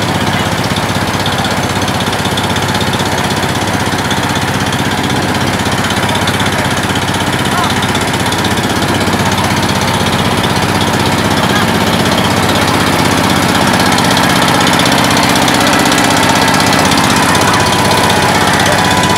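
A fishing boat's engine running steadily and loudly, with a constant low hum.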